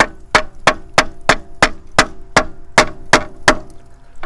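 Hammer striking a steel pry bar held against a GM truck's starter motor, about three quick taps a second with a short metallic ring, stopping shortly before the end. The tapping is done with the key held in crank to free a stuck armature; the starter does not turn over, a sign that it has failed.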